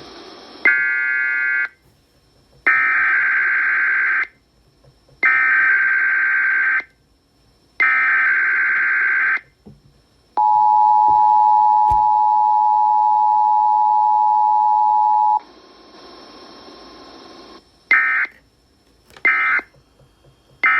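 Emergency Alert System test tones: after a short tone burst, three loud bursts of SAME digital data header about 1.5 s each, then the steady two-tone attention signal for about five seconds, then three brief end-of-message data bursts near the end.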